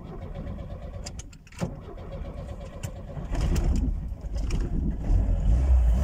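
Car engine running, heard from inside the cabin, growing louder about three seconds in and again near the end as the car gets going. A few light clicks and knocks come before that.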